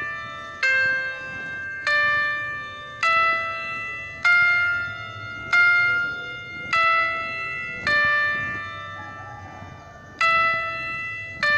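Background music: a slow melody of bell-like notes, about one a second, each struck sharply and then ringing away, with one longer held note near the end.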